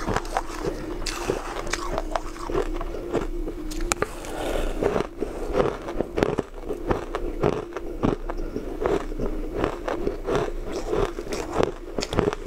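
Crushed, coloured ice being crunched between the teeth, in dense irregular crackles, with a metal spoon scraping through the ice in a metal bowl.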